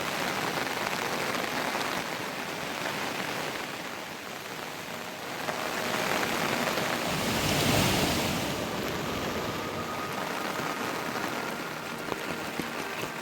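Heavy monsoon rain falling in a steady hiss, swelling louder for a couple of seconds in the middle.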